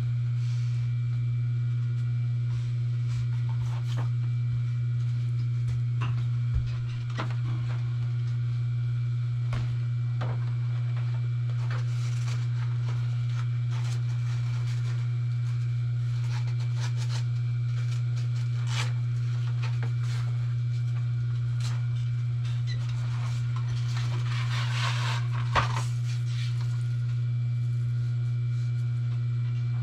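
A steady low electric motor hum, with vinyl panels being handled over it: scattered light clicks, and a short rustling slide about three-quarters of the way through that ends in a sharp click.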